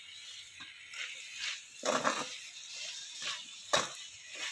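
Wooden spatula stirring cooked raw-papaya cubes in a metal kadhai: irregular scrapes and rustles against the pan, with a sharper scrape about four seconds in.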